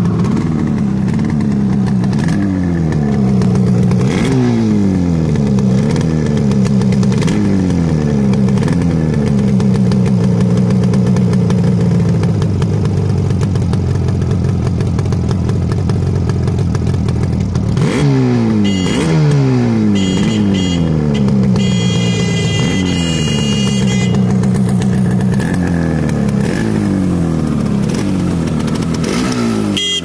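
Yamaha RD350 two-stroke parallel-twin engine on contact-breaker points ignition, idling and being blipped: quick revs that rise and drop back about once a second, a steady idle for several seconds in the middle, then more blips near the end.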